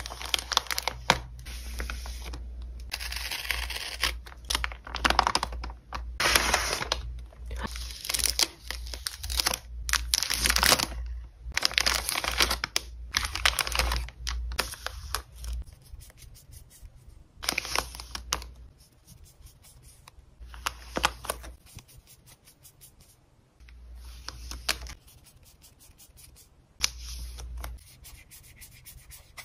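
Tape peeled and a paper mailer torn open, then clear plastic sleeves crinkling as photocards are unwrapped and handled: a dense run of rustles and tears that thins out to sparser rustles about halfway through.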